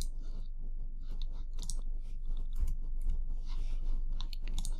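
Computer mouse clicking irregularly, a few clicks a second, as keys are pressed on an on-screen calculator keypad.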